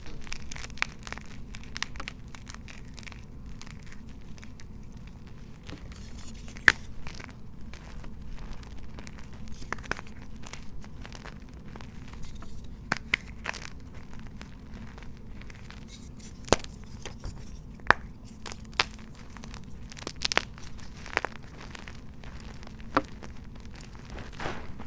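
Dyed gym chalk and reformed chalk blocks being crushed, giving irregular crisp crunches and crackles over a steady low hum.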